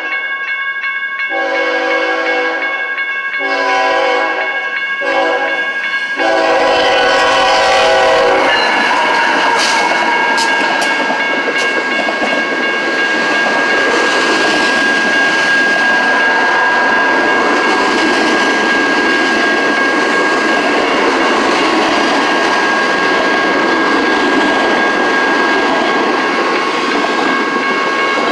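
Freight locomotive's air horn sounding several long blasts as the train nears the grade crossing. The horn gives way to the loud, steady rush and clatter of a double-stack intermodal freight train rolling past on the rails.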